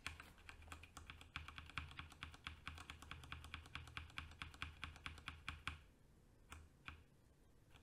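Computer keyboard keys tapped in quick succession, several a second, for about six seconds. Two last single taps follow.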